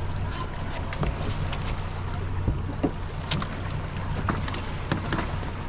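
Outboard motor idling with a steady low hum, under wind on the microphone and water noise, with scattered short clicks and taps.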